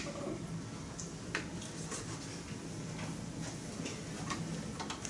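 Quiet room tone with a few scattered light clicks, one about a second and a half in and another a little past four seconds.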